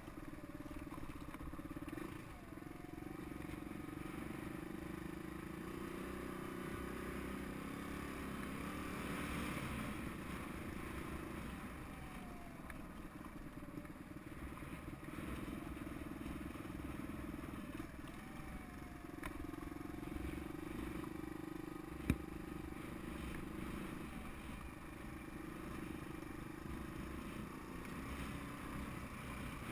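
Suzuki DR200's single-cylinder engine running at low speed, its pitch rising and falling gently with the throttle. One sharp knock about three-quarters of the way through.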